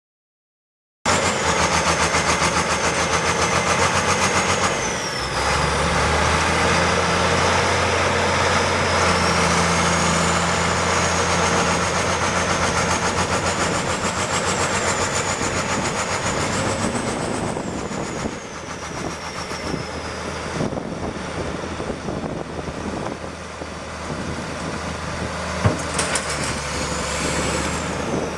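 1977 Case Drott 50 excavator's diesel engine running, cutting in suddenly about a second in, with a steady low drone and a high whine that wavers up and down. The engine note shifts about five seconds in and drops a little past the middle.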